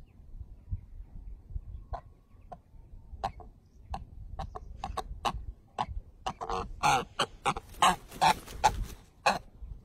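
Domestic fowl calling: short single clucks starting about two seconds in and coming closer together, then a run of longer, louder calls in the second half.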